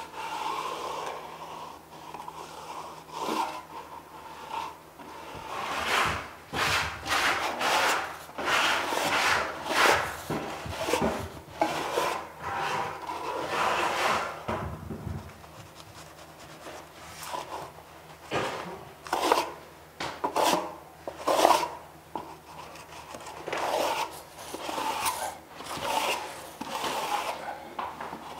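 Steel trowel scraping and rubbing over Kerdi waterproofing membrane, pressing it into the thinset mortar beneath to work out excess mortar and air, in a long run of irregular strokes.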